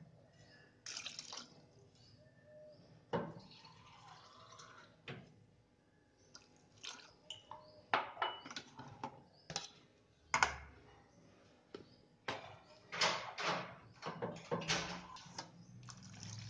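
Scattered drips, splashes and light clinks of water against a steel pot, ending with a glass of water poured into a steel pot of diced potatoes.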